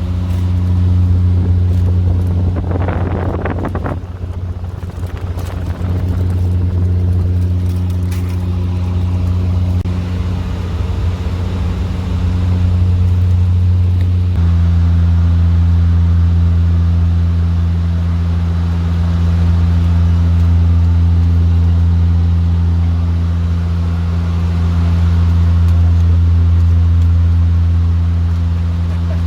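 Motor vehicle engine running at a steady speed with a low, even drone; its pitch drops slightly about halfway through.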